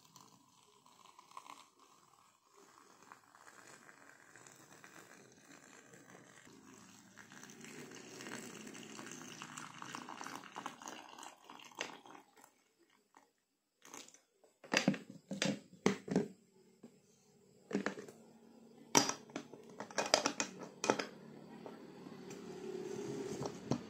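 Boiling water poured in a steady stream from an electric kettle into a glass teapot over sliced turmeric for about twelve seconds. It is followed by a run of sharp knocks and clinks as the glass teapot is handled and its lid fitted.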